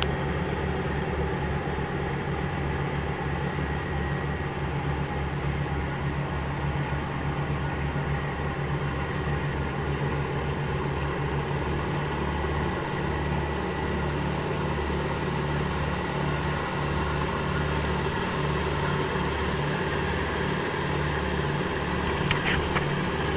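Charter fishing boat's engine running steadily at cruising speed, a low wavering throb under a rush of wind and water from the wake.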